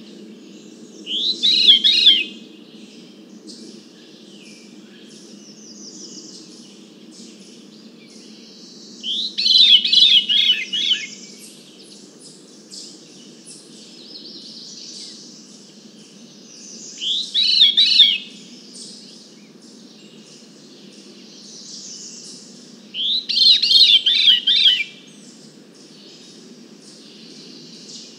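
A veery singing: four song phrases, each a quick run of fluty, spiraling notes that fall in pitch, spaced several seconds apart. Picked up from about 100 feet away by a parabolic microphone.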